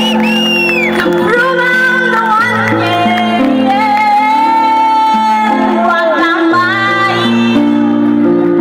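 A woman singing live into a microphone over electronic keyboard accompaniment of held chords and bass notes, amplified through a PA. Her voice drops out shortly before the end while the keyboard carries on.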